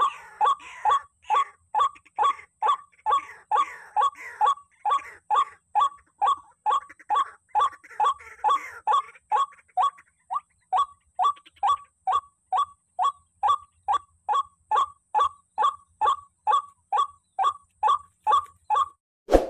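White-breasted waterhen calling: a steady, monotonous run of short hooked notes, about two a second. The calls stop near the end, followed by a single sharp click.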